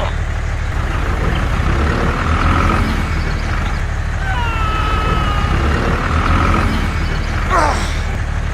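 A low, steady engine-like rumble of a miniature tractor. Thin whistling tones come and go over it in the middle, and a short wavering squeal sounds near the end.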